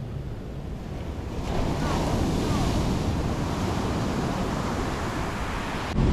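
Ocean surf washing, with wind buffeting the microphone; the rushing swells louder about a second and a half in.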